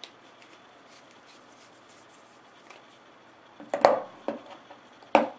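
Handling noise from craft supplies on a tabletop: faint ticks, then a few short knocks, the loudest about four seconds in and another just before the end.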